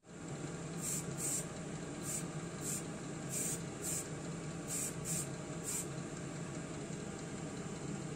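Kitchen range hood extractor fan running steadily with a low hum as the paint booth's exhaust, while paint is sprayed onto a model car in about nine short hissing bursts, stopping about six seconds in.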